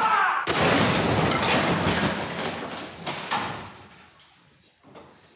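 Stacked cardboard boxes crashing down: a sudden loud crash about half a second in, then a clatter of tumbling boxes that fades away over the next few seconds.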